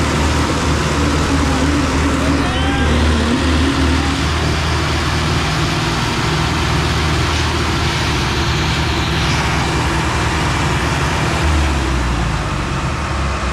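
Diesel tractor engine running steadily with a low rumble, the engine note changing about eleven seconds in.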